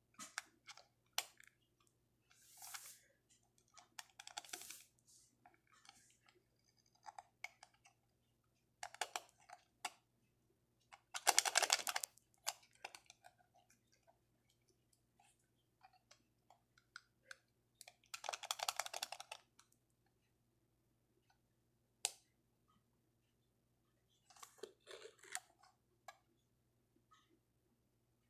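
Quiet handling noise from a small plastic Pikachu toy being poked and worked with a thin wire: scattered light clicks and taps with short scraping rustles, the two longest and loudest about halfway through and again about two-thirds of the way in.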